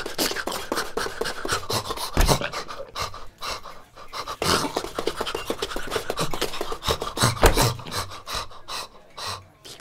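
Cartoon dog panting rapidly and unevenly, with two low thumps about two seconds in and again about seven and a half seconds in.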